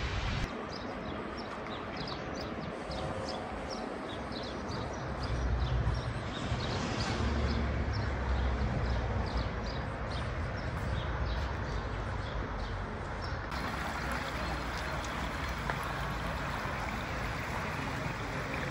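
Steady rush of falling water with many small birds chirping high above it. A low wind rumble hits the microphone in the middle, and the chirping stops about thirteen seconds in.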